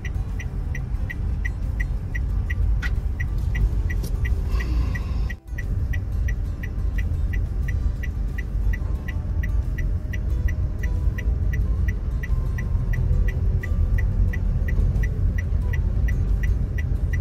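Steady low rumble of a Daihatsu car's engine and road noise heard from inside the cabin while driving, with an even, fast ticking at about three ticks a second throughout. The sound drops out briefly about five seconds in.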